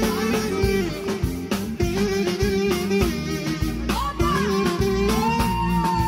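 Live band music played loud through a PA: keyboard and a steady drum beat, with a long held note rising into place about four seconds in and holding to the end.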